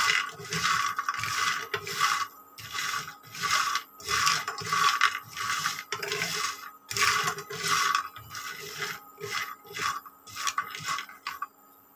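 Wooden spatula stirring hard, dry pumpkin bori (mung dal and ash gourd dumplings) as they dry-roast in an oil-free nonstick frying pan. The pieces scrape and rattle against the pan about twice a second, and the stirring stops near the end.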